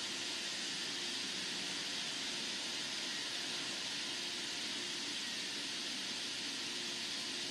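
A steady, even hiss of outdoor background noise, with no separate sounds standing out.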